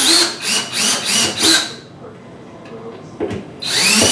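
Cordless drill-driver backing out a wall oven's frame screw. It runs in about four short trigger bursts, goes quiet, then makes a longer run near the end whose whine rises as the motor spins up.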